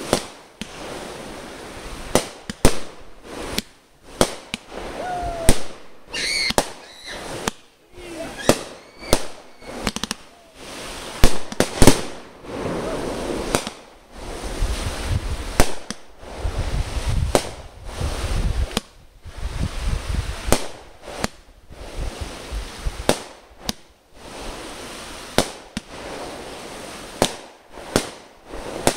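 Aerial fireworks bursting overhead: a rapid, irregular series of sharp bangs and pops, one or two a second, with crackling between them.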